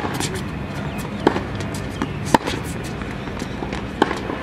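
Tennis rally on a hard court: sharp pops of the ball struck by racket strings and bouncing on the court, about four of them a second or more apart, the loudest a little past halfway.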